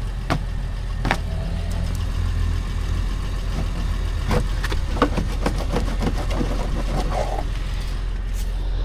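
Honda car engine idling steadily, running on its freshly replaced serpentine belt, with scattered short clicks and knocks over the idle.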